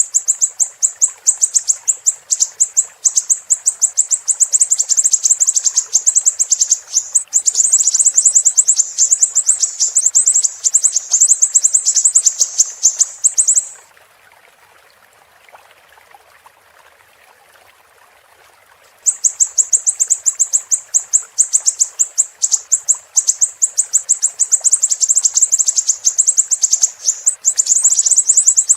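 Siri-siri bird calling in rapid, sharp, high-pitched chirps strung together in long fast series. The calls break off for about five seconds in the middle, leaving only the faint sound of flowing water beneath, then resume.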